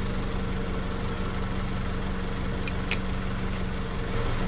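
2003 Honda Civic LX's 1.7-litre four-cylinder engine idling steadily, with two faint clicks about three seconds in.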